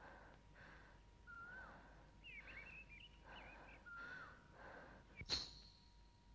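Faint film soundtrack: a string of soft breathy sounds with short warbling chirps, then a sharp drum strike with a ringing tone about five seconds in, as the song's percussion begins.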